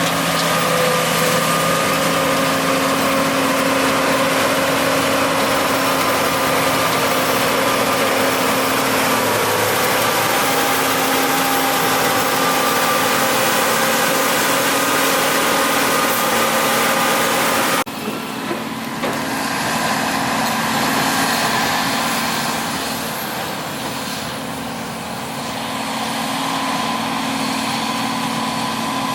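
Vehicle engine running steadily with a constant pitch. About 18 s in the sound breaks off abruptly and continues quieter and altered.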